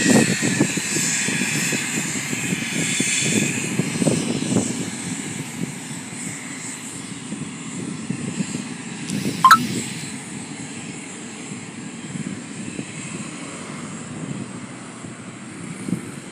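Business jet's turbofan engines whining over a low rumble as it moves along the runway, the whine fading over the first several seconds as the jet draws away. A brief sharp falling chirp about nine and a half seconds in.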